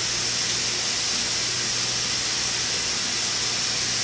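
Ground beef sizzling steadily as it fries in a pan on the stove, an even hiss with a low hum underneath.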